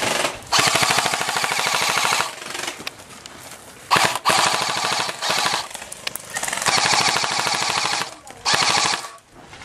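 Airsoft rifle firing full-auto, several bursts of rapid shots in quick succession, the longest about a second and a half.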